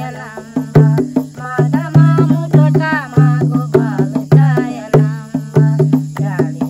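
Two women singing a devotional bhajan together, accompanied by a dholak (rope-tensioned two-headed barrel drum) beaten in a steady rhythm and hand clapping.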